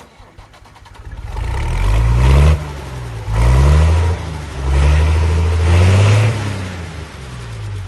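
A vehicle engine revving in several loud surges, each climbing in pitch and then dropping off suddenly.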